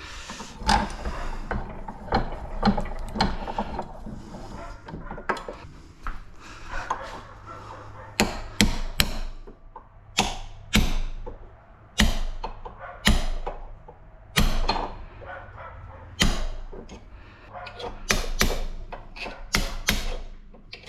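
Hand tools working scrap metal: scraping and rubbing at first, then a run of sharp, irregular knocks and strikes from about eight seconds in, as copper parts are knocked and pried loose.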